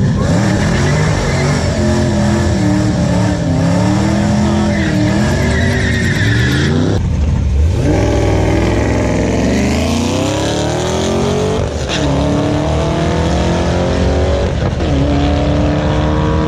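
Drag cars at the start line and launching down the strip. The engine revs unevenly for several seconds, then about halfway through it pulls hard, its pitch climbing steadily and dropping back at two gear shifts before climbing again.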